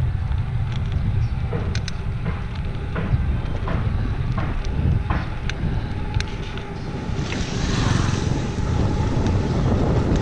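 Wind buffeting the microphone of a camera on a moving bicycle, a steady low rumble with scattered small clicks and rattles. A broader hiss swells about seven to nine seconds in.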